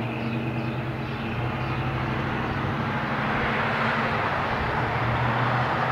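Street traffic passing: a vehicle engine's steady low hum with tyre and road noise, growing gradually louder.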